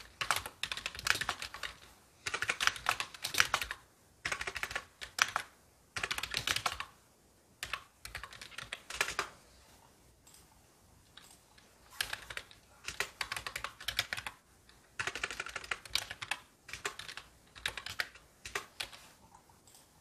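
Typing on a computer keyboard: quick runs of keystrokes in bursts of a second or two, separated by short pauses, with a longer pause about halfway through.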